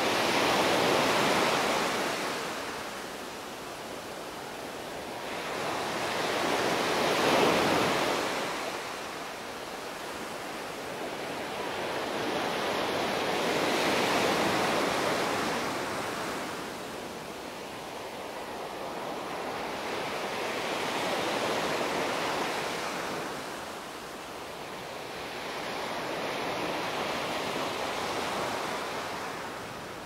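Small sea waves breaking and washing up a sandy beach. The surf swells and fades about every six to seven seconds, five surges in all.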